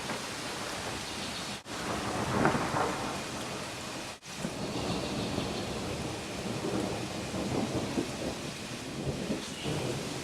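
Rain falling steadily in a thunderstorm, with thunder rumbling, loudest about two and a half seconds in. The sound cuts out for an instant twice in the first half.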